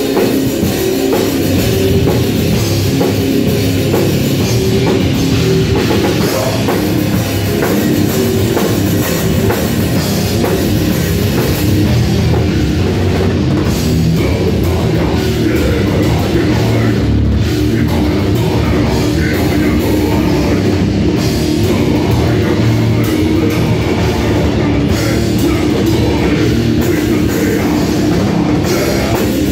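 A live band playing loud, heavy rock music without a break: a drum kit and electric guitars.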